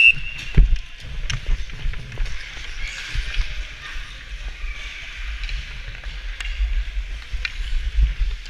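Ice skates scraping and carving across a rink's ice, with low wind rumble on a moving body-worn camera and a few sharp knocks. A whistle blast cuts off at the very start.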